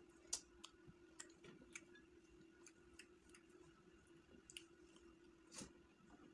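Faint eating sounds of a man eating chicken biryani with his fingers: scattered small mouth clicks and lip smacks while chewing, with a low steady hum underneath.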